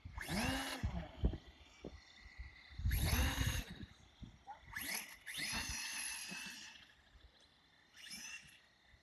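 Electric motor and geared drivetrain of a Traxxas TRX-4 RC truck on Traxx snow tracks, whining in about four bursts of throttle. In each burst the pitch rises and then falls, and the third burst is held the longest.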